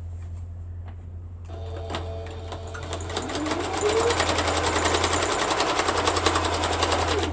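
Sewing machine quilting through a heavy quilt: it is nearly stopped at first, starts up again about a second and a half in, speeds up with a rising motor pitch, and runs at fast, even stitching from about four seconds in.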